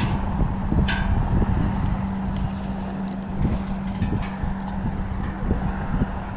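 Wind rumbling on the microphone over a steady low motor drone, with a few faint clicks.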